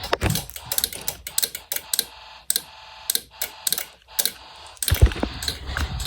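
Quick, irregular plastic clicks and clatter of Snap Circuits parts being handled and unsnapped, with a heavier knock about five seconds in.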